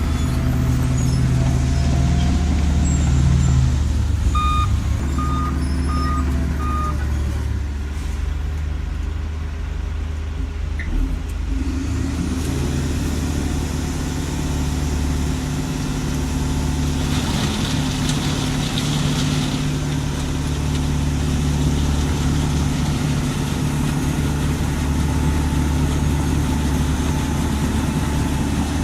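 Heavy diesel engine of a road milling machine running steadily, its note dropping for a few seconds and then rising again. Four short evenly spaced beeps sound about five seconds in.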